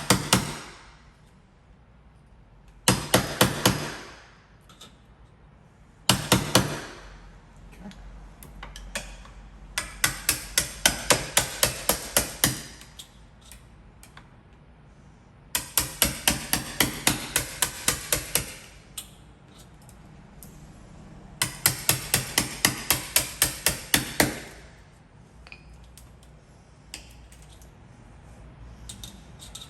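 Hammer driving a wood chisel into a wooden door frame to cut out the mortise for a deadbolt's security strike. The blows come in runs of quick strikes, about five a second, with pauses between the runs.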